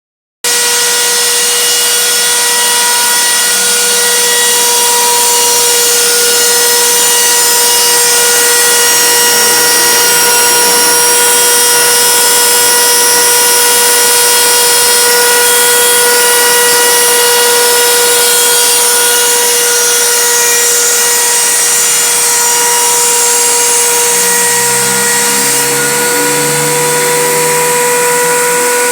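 CNC router spindle cutting plywood: a steady high whine with overtones over the hiss of the bit chewing through the wood. A lower, shifting hum joins in near the end.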